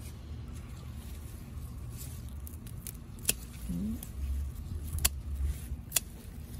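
Scissors snipping through bunches of water spinach stems: three sharp snips, about three, five and six seconds in.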